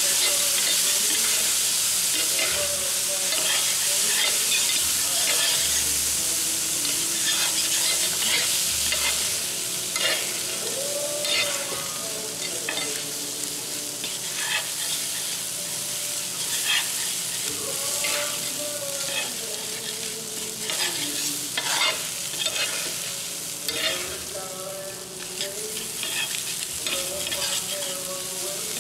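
Fried rice sizzling on a hot teppanyaki griddle as it is stirred and chopped with metal spatulas, with a steady hiss and frequent sharp clicks and scrapes of the spatulas on the plate.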